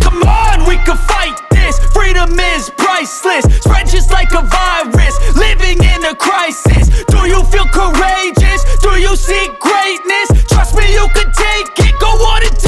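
Hip-hop background music with a heavy bass beat and vocal lines.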